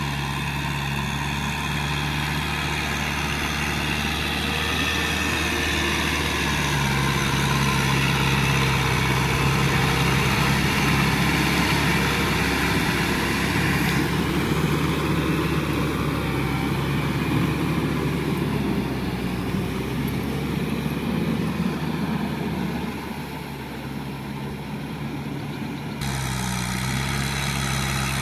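Kubota M6040SU tractor's diesel engine running steadily under load while its rear rotary tiller churns a flooded rice paddy, with splashing mud and water. The sound shifts abruptly twice, about halfway through and near the end.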